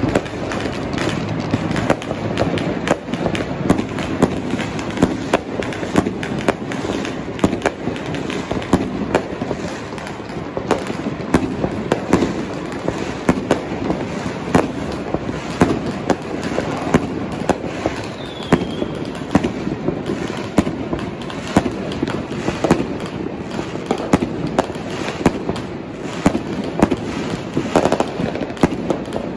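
Continuous barrage of fireworks and firecrackers: dense crackling with sharp bangs every second or so, never letting up.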